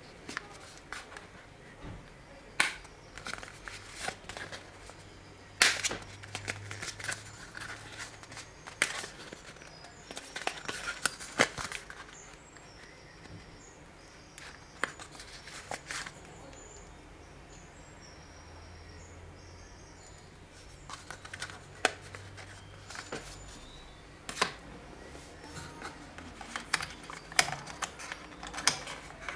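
Irregular sharp clicks and taps with light rustling, the sounds of a smartphone, its box and its accessories being handled and set down.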